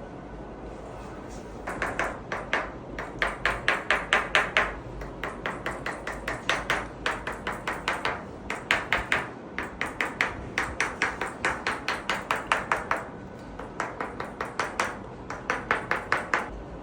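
Chiropractic hammer tool tapping rapidly, about six sharp taps a second, in runs of one to two seconds separated by short pauses. The tapping starts about two seconds in.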